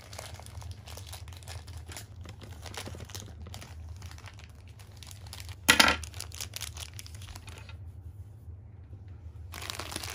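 Crinkling of a thin plastic foil toy wrapper being handled, with one loud, short burst about six seconds in. The crinkling stops for about two seconds near the end, then starts again.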